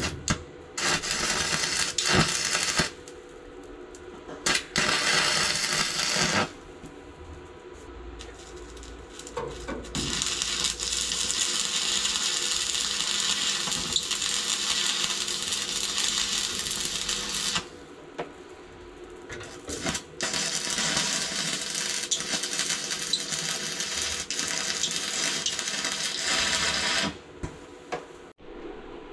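Stick (arc) welder tacking steel: the crackle of a burning electrode, in four runs, the two later ones about seven seconds each.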